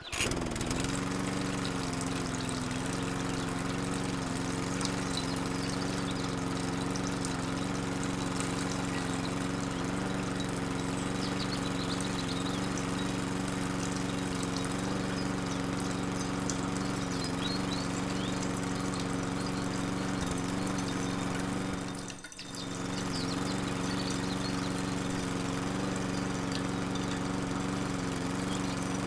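Miniature DIY electric water pump switched on and running with a steady motor hum, water pouring from its tube. The sound dips briefly about 22 seconds in, then carries on unchanged.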